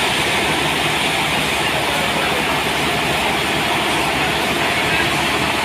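Sawmill running steadily: a loud, even rushing hiss over an engine's fast, regular pulsing, with no change in pace.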